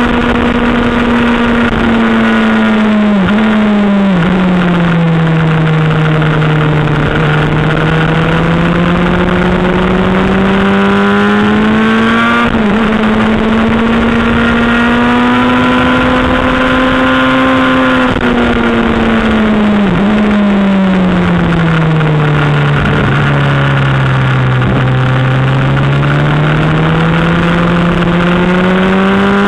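Sportbike engine heard onboard at track speed over steady wind rush. Its note falls over a few seconds about three seconds in and again about twenty seconds in as the bike slows for corners, then climbs slowly as it accelerates out.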